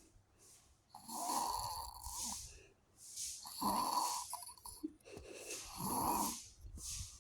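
A sleeping person snoring: three rattly snores on the in-breath, each about a second long, roughly every two and a half seconds, with softer breathy exhales between them.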